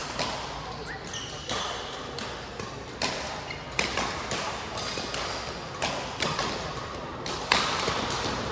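Badminton rackets striking a shuttlecock during a doubles rally: sharp pops at irregular intervals, about a dozen, ringing in a large sports hall, with fainter hits from neighbouring courts.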